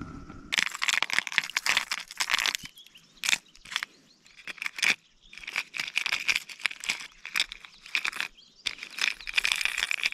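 Irregular bursts of crunching, rustling noise that start and stop several times and cut off suddenly at the end.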